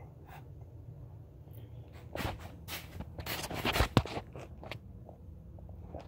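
Handling noise: scraping and rustling, with a few sharp knocks near the middle, the loudest about four seconds in, over a low steady hum.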